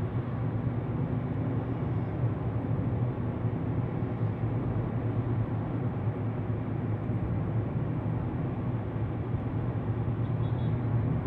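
Steady engine and tyre noise heard from inside the cabin of a car driving at a constant speed on a city road.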